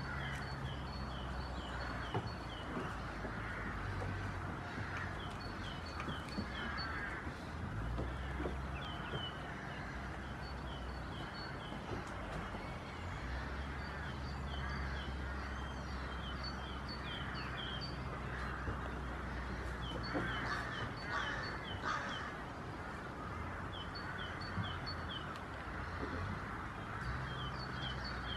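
A small bird singing: short runs of quick, high repeated chirps, heard again and again, over a steady background hiss and low rumble.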